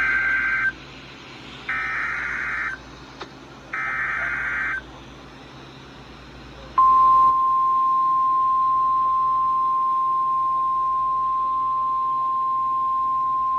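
NOAA Weather Radio Emergency Alert System signal: the end of the SAME digital header, three rasping data squawks of about a second each, a second apart. About seven seconds in, the single-pitch warning alarm tone comes on and holds steady. This is the start of a special marine warning.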